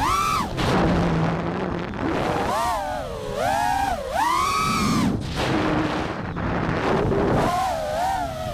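6S FPV quadcopter's electric motors and propellers whining, the pitch swooping up and down several times as the throttle is punched and eased through the flight, over a rushing wind noise on the microphone.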